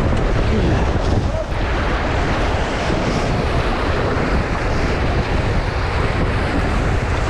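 Rushing river rapids around a raft, a steady loud wash of water, with wind buffeting the microphone.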